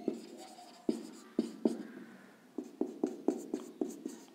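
Marker pen writing on a whiteboard: short scratchy strokes and taps, a few spaced out at first, then after a pause near the middle a quicker run of about eight.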